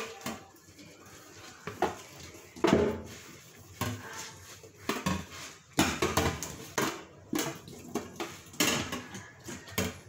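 Plastic electric-fan parts knocking and clattering against a kitchen sink as they are scrubbed and turned by hand, in irregular bumps and rattles, the loudest about 3, 6 and 8.5 seconds in.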